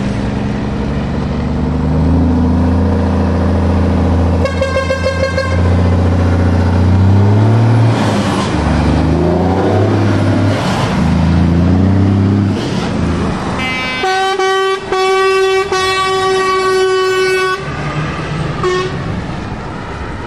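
Heavy trucks' diesel engines run past at close range, their pitch rising and falling through gear changes. A truck air horn gives a short pulsing toot about five seconds in, then a long blast with a couple of brief breaks lasting about three and a half seconds from about fourteen seconds in, and one more short toot near the end.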